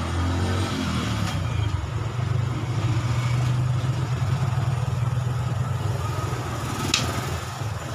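A motor engine running, its pitch falling over the first second, then settling into a steady low drone. There is a sharp click about seven seconds in.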